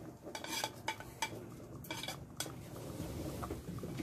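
A metal utensil clinking and scraping against a cooking pot while soup is stirred, a quick run of clinks over the first two and a half seconds, followed by an even background hiss.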